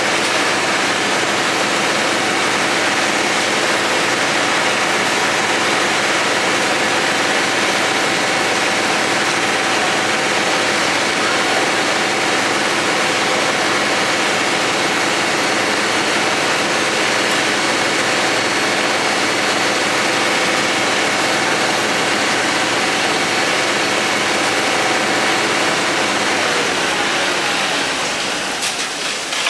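A heavy engine running steadily with a constant whine, easing off a little near the end, where a few sharp clicks sound.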